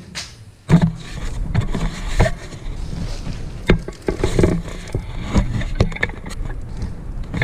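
Close, irregular knocking, clicking and rustling, as of plastic parts and wire being handled and pushed through a hole, over a low rumble, starting about a second in.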